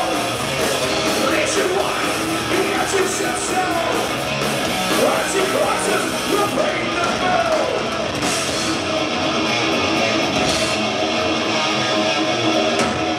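Thrash metal band playing live: distorted electric guitars, bass guitar and drum kit, with the singer shouting the vocals into a microphone.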